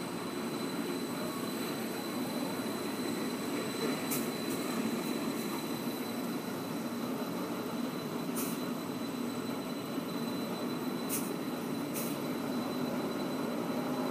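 Rubber-tyred Taipei Metro Wenhu line train moving slowly through the depot, with a steady running rumble and a thin high whine. Four short hisses come about a third of the way in, past halfway, and twice near the end.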